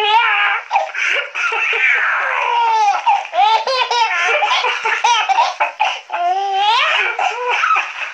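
A small child laughing hard in repeated high-pitched bursts of giggles and belly laughs.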